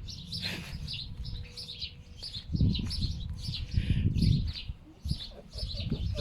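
Foxes making low grunting, clucking noises like a pig, in two loud bouts about two and a half and four seconds in, over steady high bird chirping.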